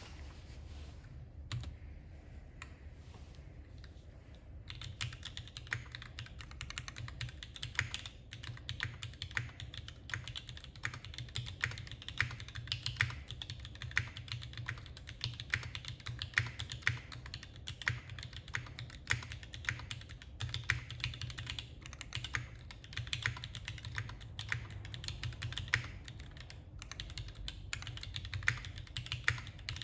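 Typing on a custom mechanical keyboard with Gateron Yellow linear switches and GMK doubleshot ABS keycaps. A few scattered keystrokes come first, then steady, fast typing from about four seconds in.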